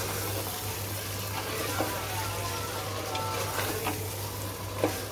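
Mutton pieces sizzling in thick onion-tomato masala in an open aluminium pressure cooker while a wooden spatula stirs and scrapes them, the meat being browned (bhuna) in the spice paste. There are a few sharp knocks of the spatula against the pot, over a steady low hum.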